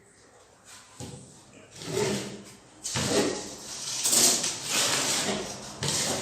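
Metal putty knife scraping and spreading filler along a drywall seam: a couple of short strokes, then a longer run of strokes from about halfway through.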